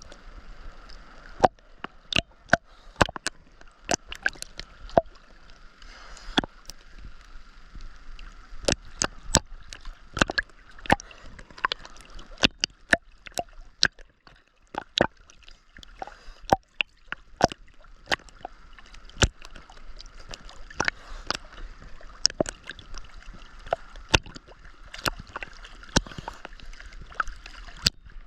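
Sea water sloshing and gurgling close to the microphone during ocean swimming, with many sharp, irregular clicks and knocks, one to three a second.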